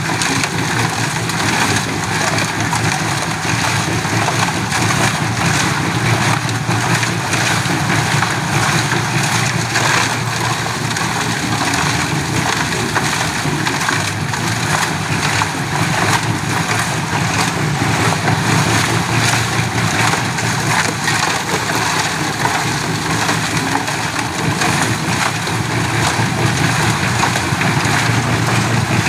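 Engine of a portable concrete mixer running steadily, the drum turning and churning wet concrete and gravel.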